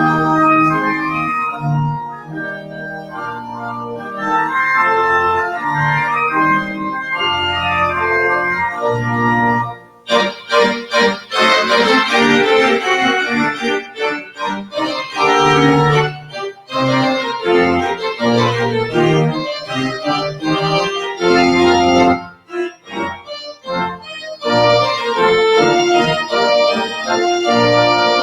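Church organ playing the postlude in sustained chords. It is softer for a couple of seconds near the start, breaks off briefly about ten seconds in and comes back fuller and louder, with another short pause a little past the twenty-second mark.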